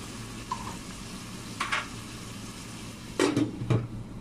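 Glass lid set onto a stainless steel wok: two loud knocks about half a second apart near the end, with a lighter clink earlier, over the steady sizzle of lotus root and carrots frying.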